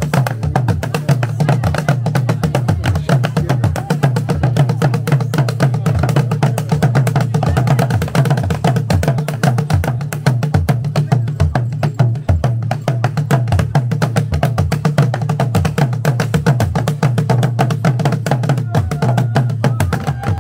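Traditional Rwandan ingoma drums, a row of tall wooden drums beaten with sticks by two drummers, playing a fast, steady, driving rhythm with deep low notes that shift from drum to drum.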